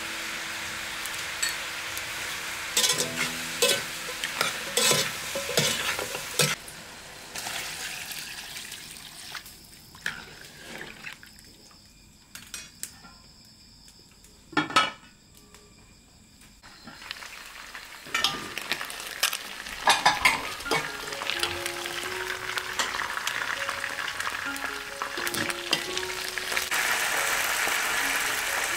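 Chicken pieces sizzling and being stirred in a metal pot, with a metal spoon clinking against the pot. A quieter stretch in the middle holds one sharp knock; then sizzling and metal clinks start again.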